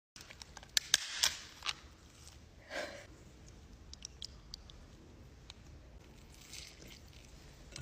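Crab shell being broken apart by hand: several sharp cracks and clicks in the first two seconds, a short crunching rustle near three seconds, then faint small ticks.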